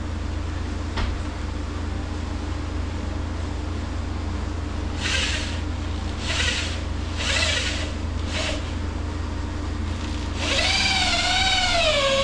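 Power drill driving a screw into wood from about ten seconds in, its motor pitch wavering and dipping under load. Earlier there are four short hissing bursts about a second apart, all over a steady low hum.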